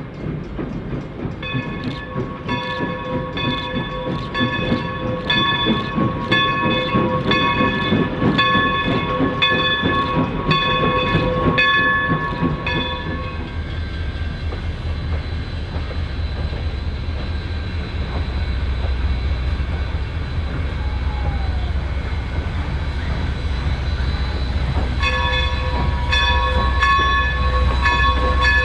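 Baldwin 2-8-0 steam locomotive's bell ringing in steady, evenly spaced strokes over the rumble of the moving train. The bell stops for about ten seconds of low rumble, then rings again near the end as the engine rolls in.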